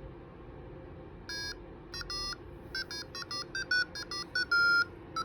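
Electronic buzzer of a door alarm sounding a string of short beeps of slightly varying pitch and length, starting about a second in, with one longer beep near the end.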